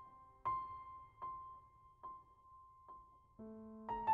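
Background piano music: a single high note struck over and over, about once a second, with lower notes and chords coming in near the end.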